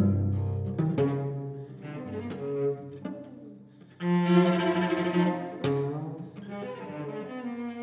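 Solo cello bowed with sharp, accented attacks: a loud low note at the start, then a quieter stretch, a sudden loud attack about four seconds in with a held note, and a softer sustained tone near the end.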